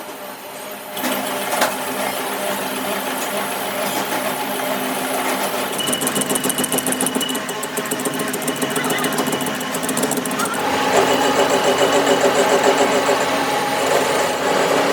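A small motor-driven machine running steadily with a fast rhythmic clatter, louder from about the middle onward.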